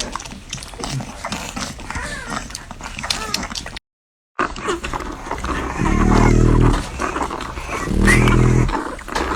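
Newborn French Bulldog puppies nursing: wet suckling clicks and small squeaks. After a brief dropout come two loud, low, growl-like grunts about two seconds apart.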